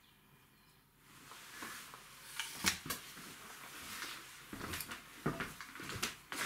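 A person getting up from a wooden bench and moving about: a string of light knocks and clatters with rustling, starting about a second in.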